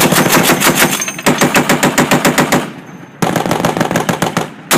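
Browning M2 .50 caliber heavy machine gun firing long, rapid bursts back to back, about three in a row with a short lull before the last one.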